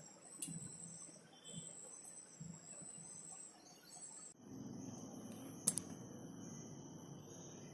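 Faint handling of a wooden speaker box: a few soft knocks over a thin, high, steady insect-like whine, then a steady low hum and one sharp click a little past halfway.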